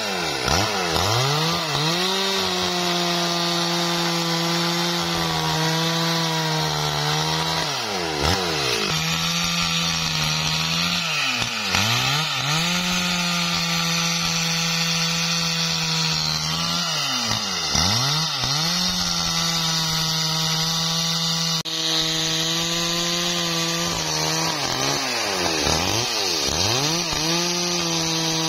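STIHL MS 382 two-stroke chainsaw cutting through a large felled wadang log, running at high revs under load in the cut. Several times the throttle eases off, the engine note drops, then it revs straight back up.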